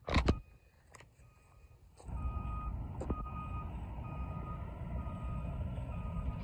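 Backup alarm of a CP high-rail truck reversing, beeping about once a second, faint at first and plainer later. A couple of sharp knocks come right at the start, and a steady low rumble sets in about two seconds in.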